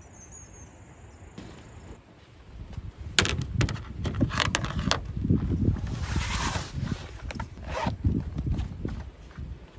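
Close handling sounds at a truck tailgate: sharp clicks and knocks as a collapsible silicone bowl is set on the aluminium checker-plate deck, then rustling and clicking as a fabric cooler bag is handled. The sounds begin about three seconds in.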